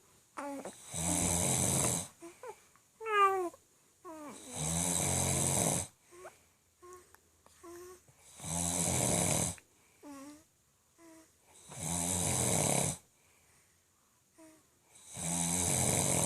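A man snoring loudly: five long, harsh snores about three and a half seconds apart, each lasting about a second. Short gliding squeaks come in the quiet gaps between the snores.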